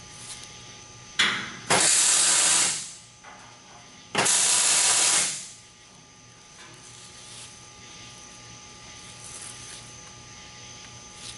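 MIG welder laying two short tack welds, each a steady hissing crackle about a second long and a few seconds apart, tacking a baffle into the fuel tank.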